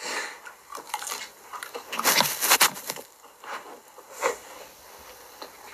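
Close-up eating noises: chewing and biting, with irregular clicks and rustles of a spoon and dishes. The rustling is densest around two seconds in.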